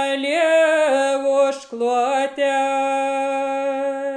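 A woman's solo voice singing a Lithuanian folk song unaccompanied, on long, slowly gliding held notes. A brief breath comes about a second and a half in, then one long held note.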